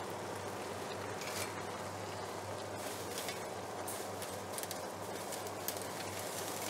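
Pot of water at a rolling boil on the stove, a steady bubbling hiss with faint crackles, as fresh fettuccine is dropped in. A low steady hum runs underneath.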